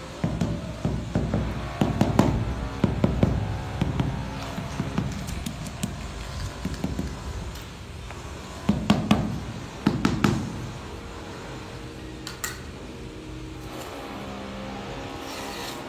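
Rubber mallet tapping a large 600 mm floor tile down onto a bed of loose sand-cement mortar to bed and level it: quick runs of dull knocks, one cluster in the first few seconds and another about nine to ten seconds in, with a few sharper clicks later.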